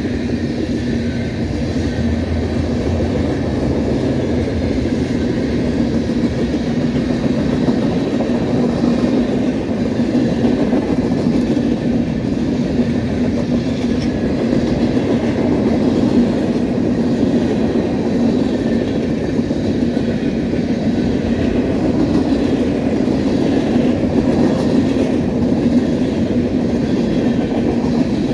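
Freight train cars rolling past: a steady rumble of steel wheels on the rails, with repeated faint wheel clacks over rail joints.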